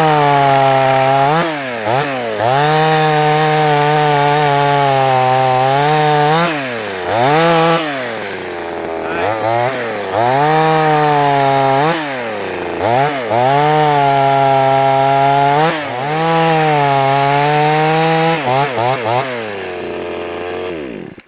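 Jon Cutter G2500 25.4 cc two-stroke top-handle chainsaw cutting through a seasoned oak limb at high revs. The engine note dips and picks back up several times through the cut.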